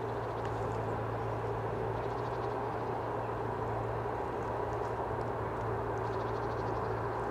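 Steady low drone of an ST43 (Romanian-built 060DA) diesel-electric locomotive's V12 diesel engine running under load, with a constant low hum and higher steady tones above it.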